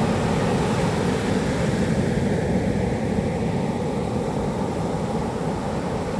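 Heavy typhoon surf breaking on the beach: a steady low roar of waves, with strong wind rumbling on the microphone.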